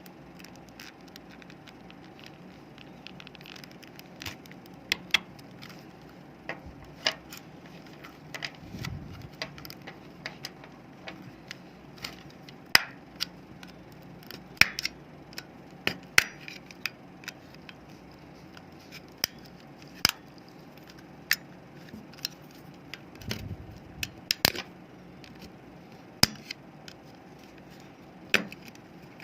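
Irregular sharp clicks and taps of a plastic remote-control casing and its parts being handled and taken apart, with a couple of dull low thumps.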